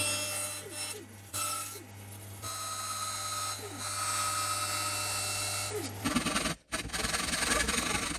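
Bandsaw running with a steady hum while it cuts a slot into a small wooden block. About six seconds in it stops, and a handsaw then cuts into a wooden block with back-and-forth strokes.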